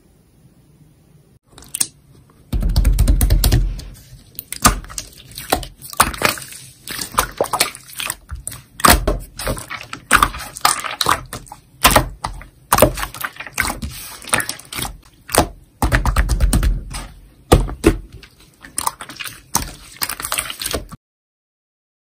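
Toy slime being squished, stretched and poked: a dense run of sticky, wet clicks and pops, starting about a second and a half in. It has two longer, deeper squelches, one about three seconds in and one near the end. It cuts off suddenly shortly before the end.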